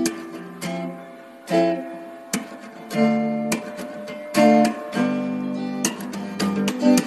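Background music: an acoustic guitar strumming chords, each strum ringing out.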